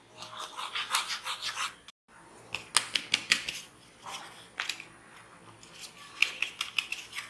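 A plastic spoon scraping and stirring flour and cocoa powder in a plastic sieve, then the sieve being shaken over a glass bowl to sift the dry mix, a run of quick scratchy taps and rattles. There is a brief break about two seconds in.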